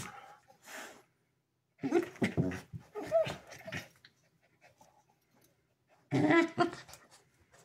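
Two huskies play-fighting, growling and yapping at each other in two short bouts, the first about two seconds in and the second near the end.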